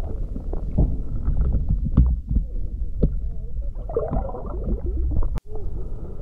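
Muffled underwater sound picked up through an action camera's waterproof housing: a low rumble of moving water with scattered knocks. There is a brief dropout about five seconds in.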